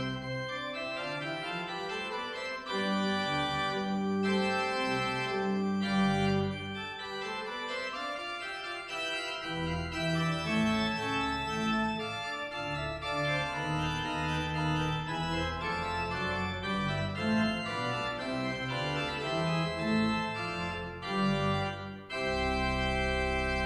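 Church organ playing slow, sustained chords. Near the end it settles on a full closing chord with a deep bass.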